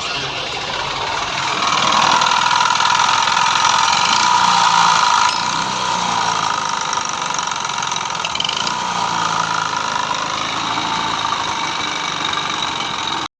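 Yamaha Fascino scooter's single-cylinder four-stroke engine running with a steady mechanical noise. It runs a little louder for a few seconds early on, then settles. The noise is the sign of a failed crankshaft bearing and play in the connecting rod.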